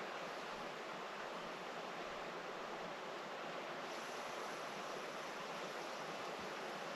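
Faint, steady hiss of background noise with no distinct events, water- and wind-like in character.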